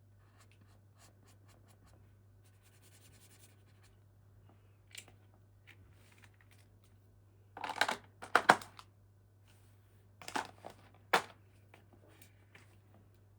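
Toy packaging handled close to the microphone: light scattered clicks and taps, then a few short, loud scraping or tearing strokes, the loudest pair about eight seconds in and two more around ten and eleven seconds.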